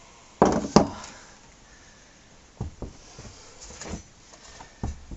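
Metal hand tools clanking and knocking: two sharp clanks about half a second in, then a few lighter single knocks, as a long socket bar is handled and fitted.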